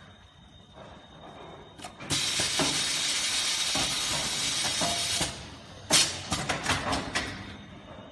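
SW-S900 automatic stretch-film soap wrapping machine running: a loud steady hiss lasting about three seconds, starting about two seconds in, then a quick run of sharp mechanical clicks and clatters.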